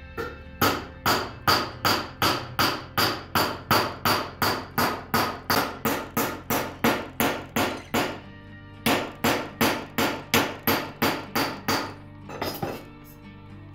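Ball-peen hammer striking a metal spoon blank on a steel swage block, a steady run of light blows at about three a second that dish the spoon's bowl into a groove. The blows stop for about a second, start again, then end with a couple of softer knocks.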